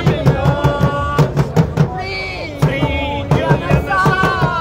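Dhol, a double-headed barrel drum, beaten in a quick, even rhythm of about four to five strokes a second, with a melody carried over the beat.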